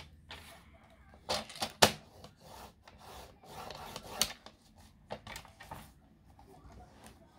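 Paper being creased and folded by hand: scraping and rubbing strokes, with a couple of sharp taps a little over a second in.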